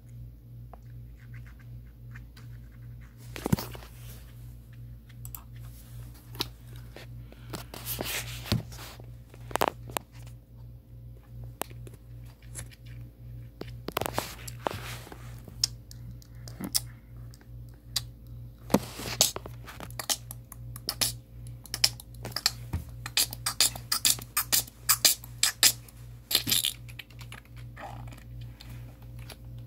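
Computer keyboard being typed on: scattered key clicks and a few louder knocks, then a quick run of keystrokes about three-quarters of the way through, over a steady low hum.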